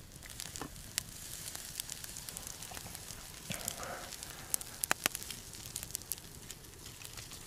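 Wood campfire crackling, with irregular sharp pops and a low hiss. About three and a half seconds in there is a short shuffle of wood as logs are pushed into the fire.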